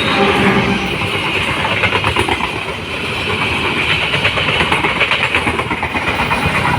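Passenger train passing close by, its wheels clattering over the rails in a steady rhythmic racket.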